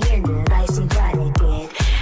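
Electronic dance music with a fast, steady kick drum whose pitch drops on each hit, and a brief drop-out near the end.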